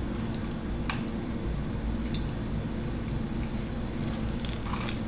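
Steady low room hum, with a few faint clicks and soft sips as tea is drunk from a foam cup, the sips clustered near the end.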